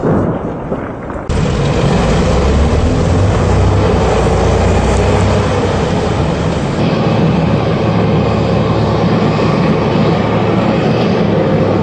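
A military tank running close by: a loud, steady engine and track noise that starts abruptly about a second in, after a brief dull rumble of distant blasts.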